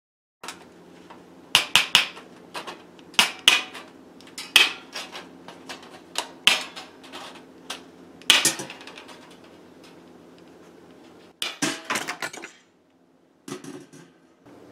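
Stainless steel wire mesh rattling and scraping against a metal paint can as the sheet is rolled into a tube and pushed down inside: irregular sharp metallic clicks and clatter, with a pause near the end. A faint steady hum runs underneath.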